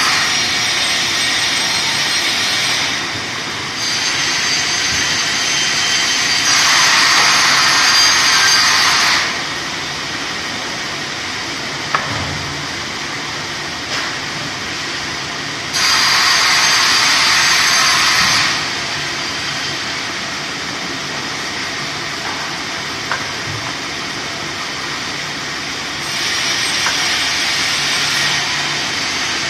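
Vertical band saw running steadily, growing louder and higher three times for a few seconds each as the carriage feeds a log through the blade, with a few single clicks in between.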